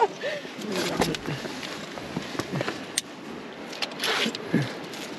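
A climber hauling herself up a rope from a cliff-hanging portaledge: a few sharp clicks from the climbing gear and brief effortful vocal sounds over a steady background hiss.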